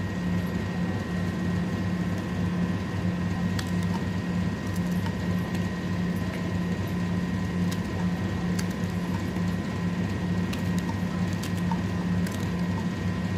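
A steady machine hum with a few faint clicks, cut off abruptly near the end.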